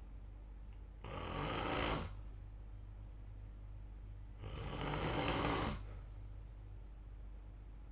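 A person snoring: two snores, each about a second long, about three and a half seconds apart.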